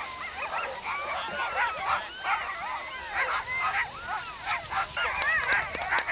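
Many sled dogs yelping and barking at once, their high calls overlapping without a break.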